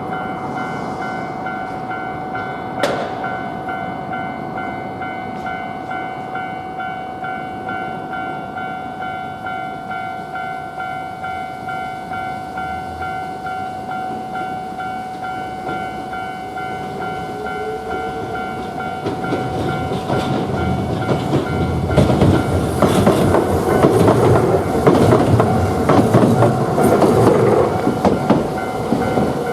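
Japanese level-crossing warning bell ringing steadily in an even pulse. About two-thirds of the way through, a Hiroshima Electric Railway tram passes over the crossing, growing louder with its wheels clacking over the rail joints, partly drowning the bell.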